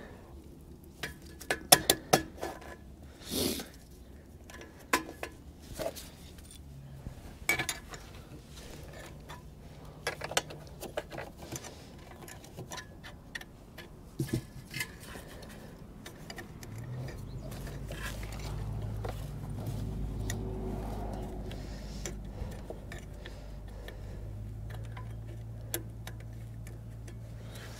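Scattered small metal clicks and clinks of screws and hand tools as the replacement carburetor's mounting screws are put back in on an RV generator. A low steady hum joins a little past halfway.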